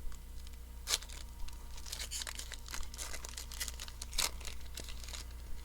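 A Panini Prizm baseball card pack wrapper being torn open and crinkled: a run of short rustling tears, with two sharper rips, one about a second in and one a little after four seconds.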